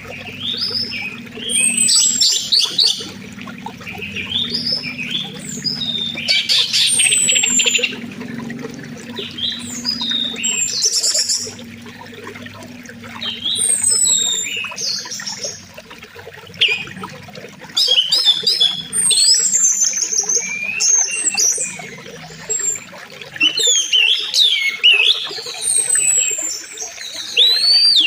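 Several birds chirping and whistling, with many quick rising and falling notes, over the steady rush of a flowing river.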